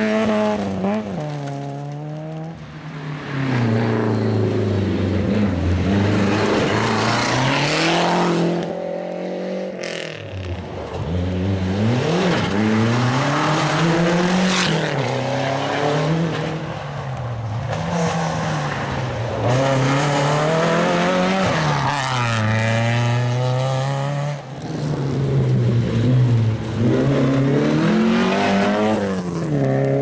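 Rally car engines driven hard on gravel, one car after another, revving up and dropping back again and again as they change gear and pass by.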